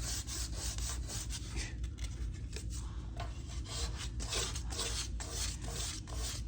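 Sandpaper rubbed by hand over the primed fender of a car in quick, repeated back-and-forth strokes, a few scratchy strokes a second.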